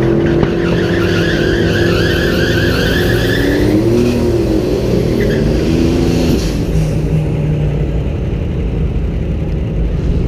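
Tesla Model S P100D under way at speed: steady, loud road, tyre and wind noise with a wavering electric-motor whine that fades out about four seconds in.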